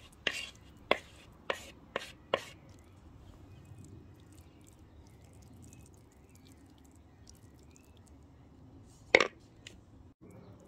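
A wooden spatula knocking against a bamboo bowl as thick eggplant dip is scraped out onto a plate: a run of sharp knocks, about two a second, in the first two and a half seconds. After a quiet stretch comes one louder knock about nine seconds in.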